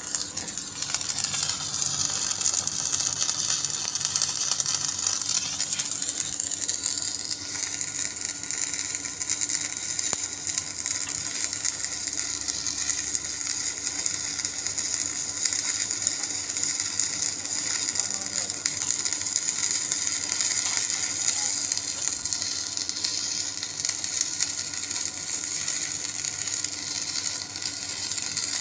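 Shielded metal arc (stick) welding: the electrode's arc crackling steadily as a weld bead is run on a steel plate.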